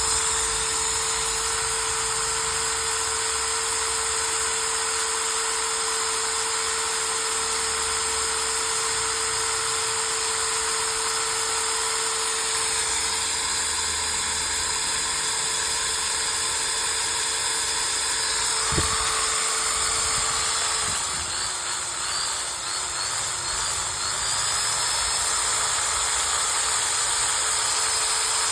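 Makita 13 mm electric drill running at a steady speed, its motor giving a constant whine over a hiss. Near the end a click comes, then for a few seconds the motor's pitch drops and wavers before it steadies again.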